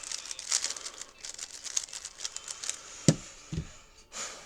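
A 3x3 speed cube being turned fast: a dense run of quick plastic clicks and rattles. About three seconds in there are two low thumps.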